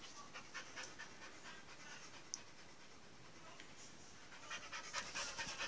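A dog panting softly: short, quick breaths that fade in the middle and grow louder and more frequent near the end.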